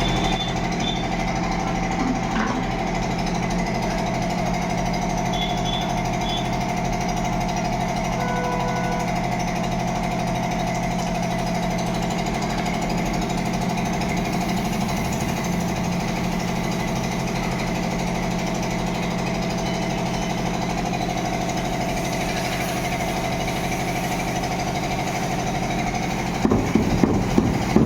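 Electric water pump motor running steadily with a constant hum and a fast rattling vibration. Just before the end come a few louder knocks.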